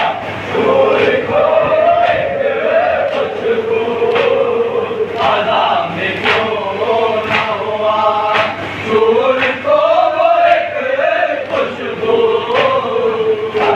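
A group of men chanting a nauha (Shia mourning lament) together in a slow, drawn-out melody. Sharp beats land about once a second, the open-handed chest-beating (matam) that keeps time with the lament.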